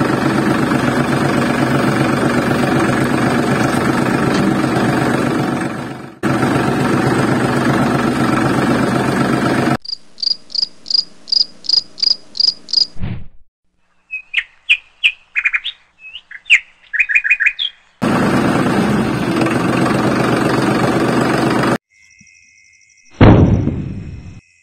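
A steady engine-like drone, like a small tractor engine running, for about the first ten seconds and again for a few seconds later. Between the two runs, small birds chirp: first a quick even series of about three chirps a second, then irregular chirps. Near the end there is one sudden loud sound that falls in pitch.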